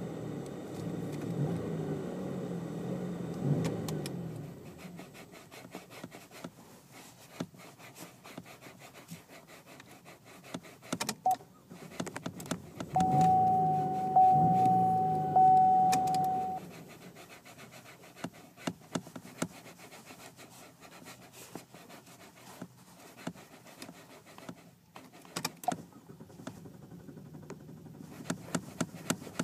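Car engine revving as the accelerator pedal is pumped: a few revs at the start, then running at idle with light clicks and rattles. About halfway through come three quick revs, each with a steady high whine over it.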